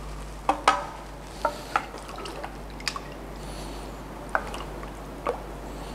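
A saucepan of warm milk and a wooden spatula being handled and stirred: about seven light knocks and clinks over six seconds, a couple of them ringing briefly.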